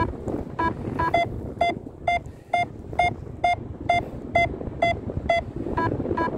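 Paragliding variometer beeping steadily, about two short beeps a second, signalling the glider is climbing in a thermal; the tone drops lower in the middle and rises again near the end. Wind rumbles on the microphone underneath.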